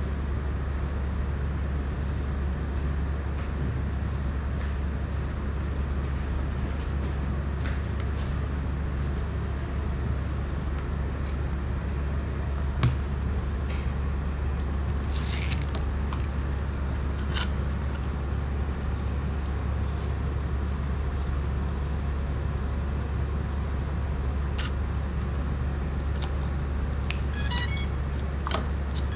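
Steady low hum with scattered small clicks and taps as small drone parts are handled. Near the end comes a quick run of high-pitched electronic beeps, as a lead is plugged into the FPV drone's electronics.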